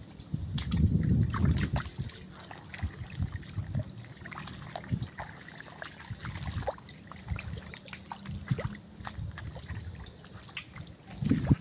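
Footsteps wading and sloshing through shallow water and mud, with many small scattered clicks and crackles and a few heavier low thuds, the loudest about a second in and near the end.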